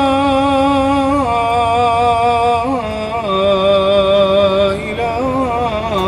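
A muezzin's solo male voice chanting the closing phrases of the adhan, holding long notes with melismatic turns; the pitch steps down about a second in and again about three seconds in.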